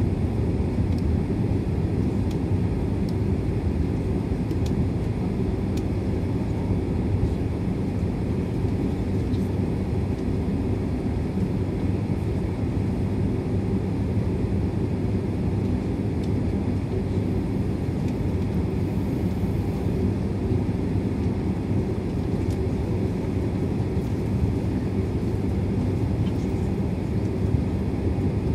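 Cabin noise of a twin-engine Boeing jet airliner taxiing: a steady low rumble of the engines heard through the fuselage, with no rise in thrust.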